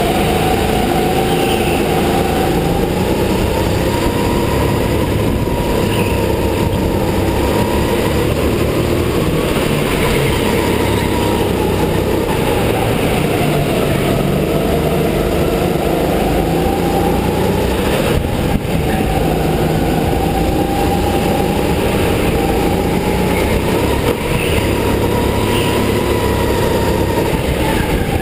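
Go-kart motor running at racing speed, heard from the driver's seat, its pitch rising and falling as the kart speeds up on the straights and slows for the corners.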